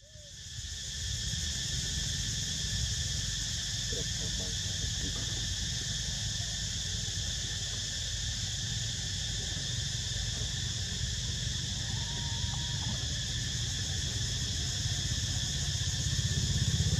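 Steady, unbroken chorus of insects buzzing over a continuous low rumble that grows louder near the end. The sound fades in at the very start.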